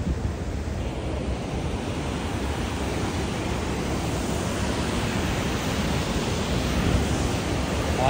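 Steady rush of water pouring over a dam's overflow weir and churning below it, with wind buffeting the microphone.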